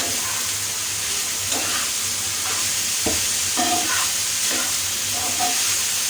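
Tomato, chicken and vegetables sizzling in a frying pan on high heat: a steady frying hiss, with a spatula stirring and scraping against the pan several times, a few of the scrapes squeaking briefly.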